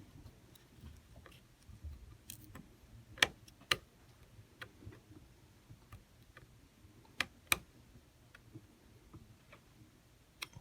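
Small sharp clicks and taps of metal parts on a Shimano Stradic 4000 FH spinning reel's bail arm being handled and fitted by hand, scattered and irregular. The loudest come as two pairs of clicks, one about three seconds in and one about seven seconds in.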